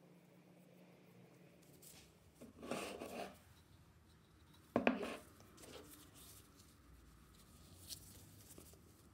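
Workbench handling sounds: a short scraping rustle, then a single sharp knock about five seconds in, followed by faint rubbing as a cloth pad wipes oil-and-urethane finish onto a wooden tool handle.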